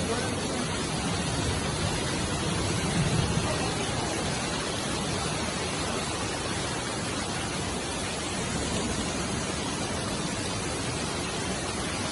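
Fast-flowing floodwater surging down a street: a steady, even rushing of water.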